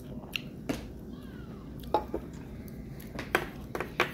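Light clicks and knocks of tableware at a meal: chopsticks, a drinking glass and dishes tapping the plate and table, a handful of irregular clicks spread across the few seconds.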